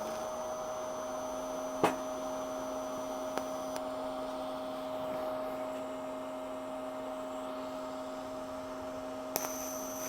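TIG welding set humming steadily, a lower tone joining at the start, with sharp clicks about two, three and a half, and nine seconds in.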